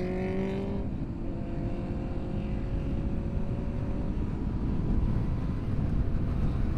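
Motorcycle engine heard from the bike itself as it rides: the engine tone climbs, drops about a second in as it changes gear, then rises slowly again before fading into a steady low rumble of wind and road noise.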